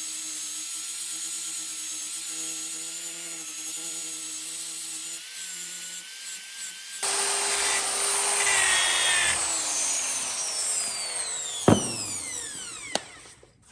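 Angle grinder with a hook-and-loop sanding pad and a 320-grit disc, running and sanding an axe head. Its steady whine and hiss give way to a louder stretch, then the tool winds down with a falling whine, with two sharp clicks near the end.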